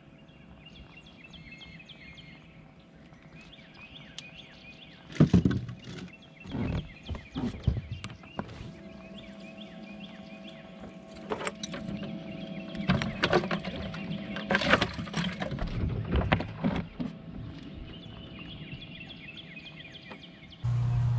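Birds chirping in the background, with a run of sharp knocks and thumps on the bass boat as the angler handles his catch, the loudest about five seconds in.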